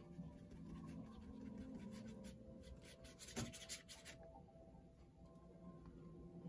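Quick rubbing, scratching strokes of acrylic paint being scrubbed onto heavy 300 lb watercolor paper, a dense run of strokes loudest about three to four seconds in.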